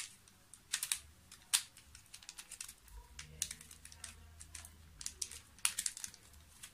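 Plastic 2x2x2 gear cube being twisted by hand: irregular light clicks and clacks as its geared pieces turn.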